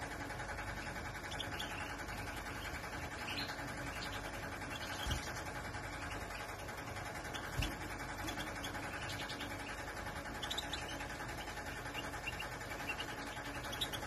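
Scattered short, high chirps from caged finches over a steady background hum, with two dull thumps a couple of seconds apart in the middle.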